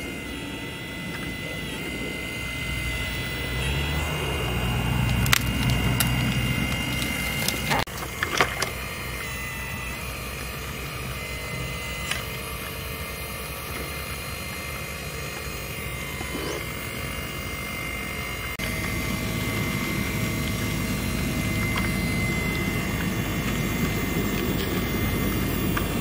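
Radio-controlled scale Volvo EC480L hydraulic excavator working: the steady whine of its electric hydraulic pump over a low hum, with a few sharp clicks about a third of the way in. The sound grows a little louder about two thirds of the way through.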